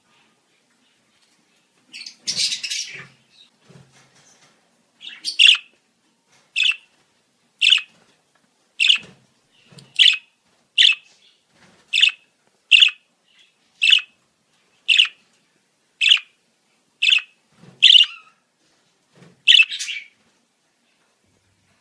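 Budgerigar calling: a short scratchy burst, then a run of about fourteen short, sharp chirps, roughly one a second.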